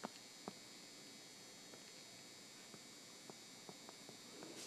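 Near silence: a faint steady electrical hum with a few soft, scattered clicks, the stylus tapping a tablet screen while writing.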